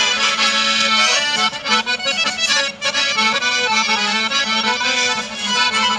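Traditional folk dance music led by an accordion, playing steadily.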